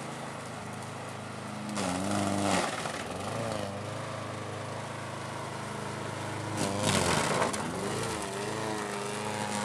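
Gasoline walk-behind rotary lawn mower engine running, its pitch dipping and recovering twice as the blade chops through a watermelon under the deck.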